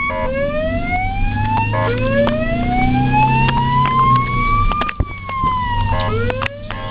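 Ambulance siren wailing: each sweep rises slowly in pitch over one to three seconds, then starts again from low. The longest sweep falls back a little near its end. Short stepped tones sound at each restart, over a steady low hum.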